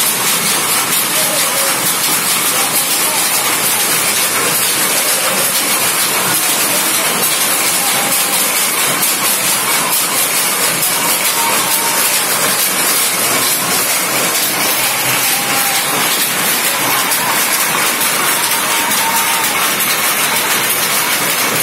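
Power looms running: a loud, steady, dense mechanical clatter that never lets up.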